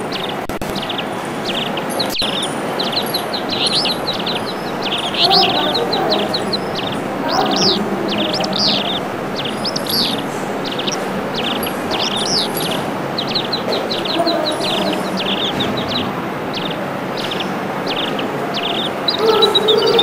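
A flock of small birds chirping busily, with many quick, short calls overlapping one another, over a steady low background noise.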